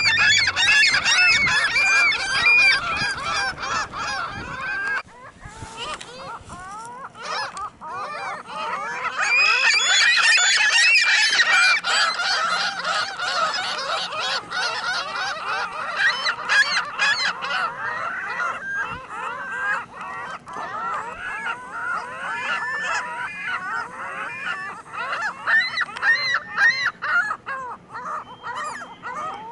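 A flock of ring-billed gulls calling over one another: many overlapping high calls, loudest in the first few seconds and again from about ten to fifteen seconds in, thinning out near the end.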